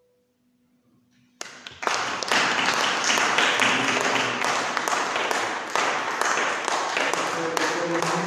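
A solo violin piece has just ended; after a brief hush, an audience breaks into applause about a second and a half in, many hands clapping steadily.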